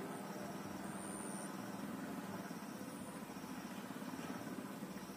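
Steady drone of a boat's engine running out on the river.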